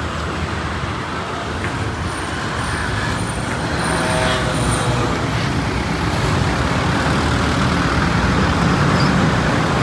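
Diesel engine of a Hino AK240 front-engine bus pulling away, mixed with passing road traffic. It grows louder toward the end as another vehicle comes past close by.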